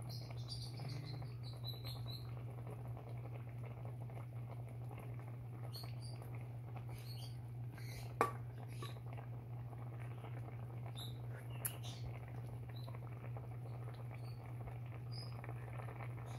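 Pork stew simmering in a pot, faint crackling and small pops from the bubbling broth over a steady low hum. A sharp click about eight seconds in and another near twelve seconds.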